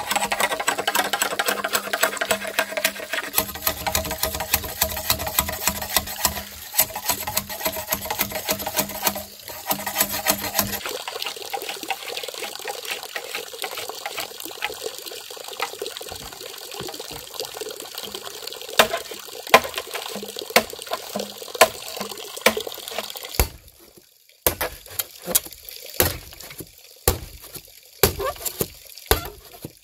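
Running water splashing and pouring, heavy at first and lighter after about ten seconds, cut off briefly near the end and followed by a series of separate sharp splashes or knocks.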